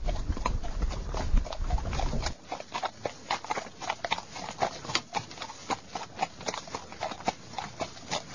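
Horses' hooves clopping in an uneven, overlapping patter. A low rumble underneath cuts off suddenly about two seconds in.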